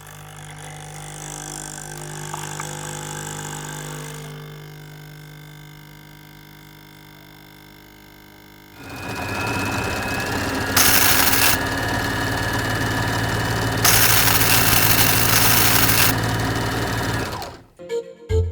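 Robot Foley made with household items: a steady machine hum with several held tones that slowly fades, then about nine seconds in a louder motor-like whir with a high whine starts. Two bursts of hiss, the second about two seconds long, come over the whir before it cuts off near the end.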